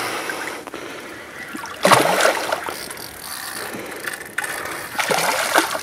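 Fishing reel clicking, its ratchet working as a hooked carp is played in close.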